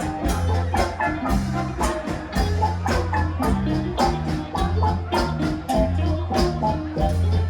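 Live rock band playing an instrumental passage: drums keeping a steady beat of about four hits a second over a bass line, with bright, mallet-like pitched notes from keyboards or percussion on top.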